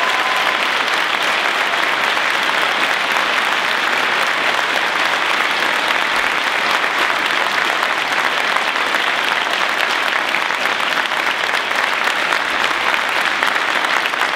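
Audience applause: a large crowd clapping in one long, steady round.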